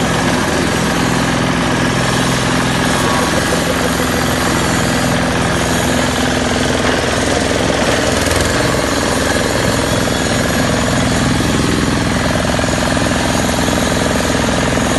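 Single-cylinder diesel engine running steadily and fast, driving a compost shredder, with a hard rhythmic knocking beat and the whir and rattle of the shredder.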